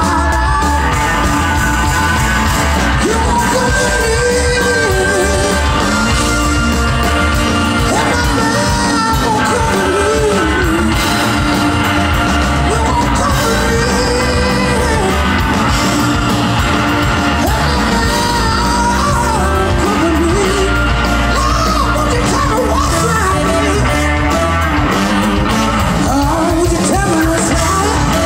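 Live rock band playing: a male singer over electric guitars, with a heavy, booming low end, heard from within the crowd.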